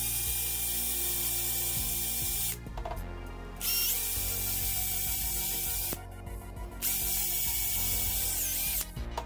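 Hand-held electric drill running in three bursts of about two seconds each, its whine rising in pitch as it spins up each time, as the bit bores into a polyurethane-filled rubber control-arm bushing.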